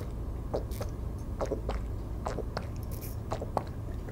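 A person gulping a green chlorophyll juice drink from a bottle, with a series of about seven swallows at an irregular pace.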